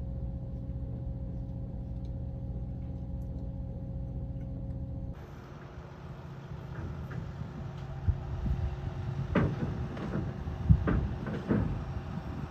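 Steady low engine drone aboard a small river ferry. About five seconds in it cuts to a quieter open-air sound as a Sprinter camper van drives off the ferry's ramp onto the gravel bank, with several thumps and knocks in the last few seconds.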